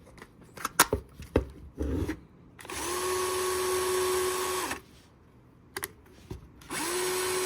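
Bosch PSR 14.4 cordless screwdriver running on a newly fitted replacement motor: two steady runs of about two seconds each, each rising quickly in pitch as it spins up and dropping as it stops. This is its first test run after the motor swap, and the motor runs. A few sharp clicks come first.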